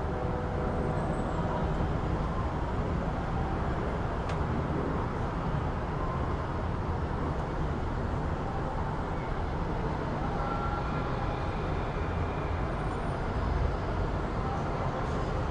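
City street ambience: a steady rumble of passing road traffic, with a single sharp click about four seconds in.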